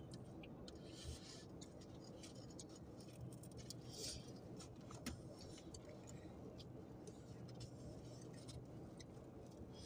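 Faint clicks and rustles of takeout food and foam containers being handled, over a low steady hum.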